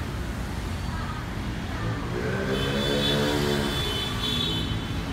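City street traffic: a steady rumble of engines, with one vehicle's engine rising and then falling in pitch as it passes about halfway through.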